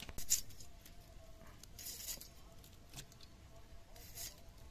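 Potato being peeled and sliced against an upright foot-held kitchen blade (bonti): four short, crisp scraping cuts, the one about two seconds in the longest.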